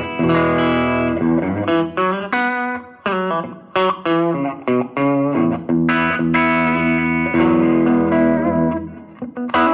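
Koll Troubadour electric guitar played through an Audio Kitchen Little Chopper amp into a Benson cabinet with a 10-inch Celestion Greenback, turned up a notch: strummed chords and single-note lines ringing out with spring reverb.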